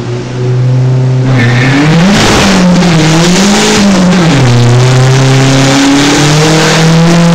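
Dodge SRT-4's turbocharged 2.4-litre four-cylinder with a Stage 3 kit run hard on a chassis dyno. It is held at steady revs, then climbs and drops in pitch several times as it is taken through the gears, then settles into a steady high drone. A loud rush of tyre-on-roller and exhaust noise joins in about a second in.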